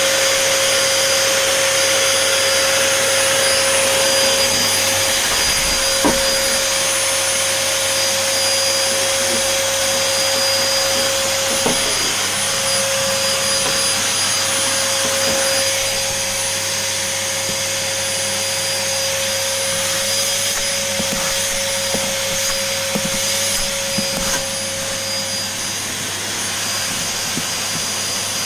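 Vacuum cleaner running steadily, sucking up spilled flour, with a high whine over its rushing noise; a few sharp knocks come through, and the whine fades out near the end.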